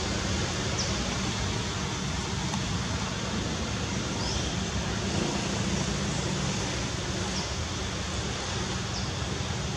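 Steady outdoor background noise: an even rushing hiss over a low hum, with a few faint short high chirps scattered through it.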